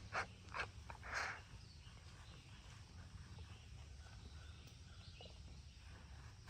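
Quiet outdoor ambience, with a few brief soft rustles or taps in the first second and a half, then only a faint steady background hiss.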